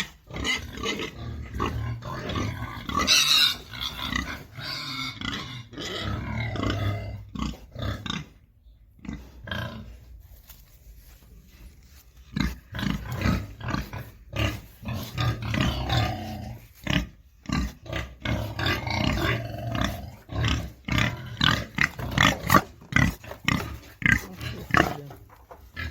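Pigs grunting while they feed, in short irregular bursts, with a quieter spell about a third of the way through.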